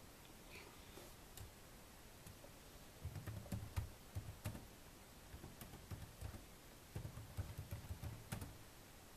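Typing on a computer keyboard: two short runs of keystrokes with dull thuds, about three seconds in and again about seven seconds in, and scattered single clicks between.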